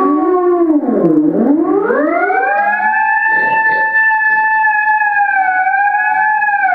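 Electronic sliding tone played through a toy controller, its pitch following how the controller is moved: it swoops down to a low point about a second in, glides up and holds high and steady, then starts to fall again at the very end.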